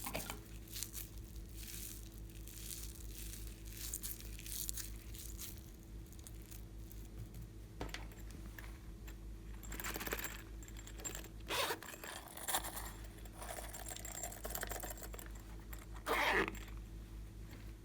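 Slime being worked by hand: sticky tearing and crackling noises in irregular bursts, loudest a few times in the second half, over a steady low hum.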